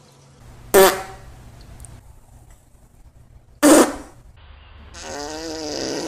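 Two short, loud farts about three seconds apart, then a longer fart with a wavering, wobbling pitch that starts after about four and a half seconds.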